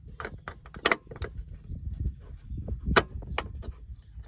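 A steel angle bracket being worked by hand into place over the mounting studs of a truck-camper rear bumper: irregular metal clinks and knocks over low scraping and handling noise, the sharpest knock about three seconds in.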